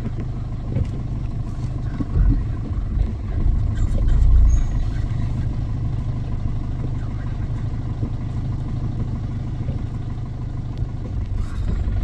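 A vehicle engine runs steadily as a low hum, heard close to the microphone. Louder low rumbles come between about two and five seconds in.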